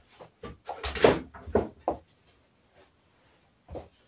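Plastic casing of an iMac G3 knocking and rattling as it is handled and pressed into place, with a cluster of knocks in the first two seconds, the loudest about a second in, and one more knock near the end.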